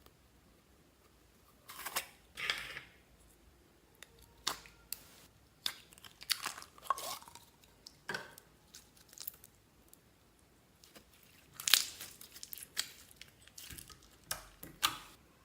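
Slime being handled, with irregular wet squishes, clicks and crackles. The loudest bursts come about two seconds in and again near twelve seconds, with short quiet gaps between.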